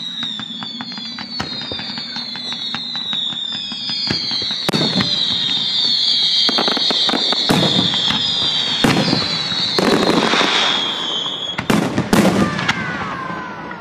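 Fireworks display: many overlapping high whistles falling in pitch over steady crackling. From about four seconds in, heavy bursts go off roughly every second, the strongest near the end.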